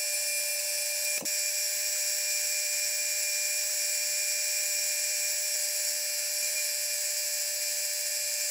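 Metal lathe running steadily with a high whine while it turns a small metal shaft, with a single sharp click about a second in.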